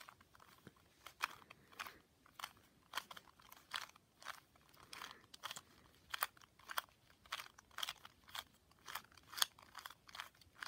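A 2x2 Rubik's cube being turned face after face through a pattern algorithm: a quiet, uneven run of plastic clicks, about two or three a second.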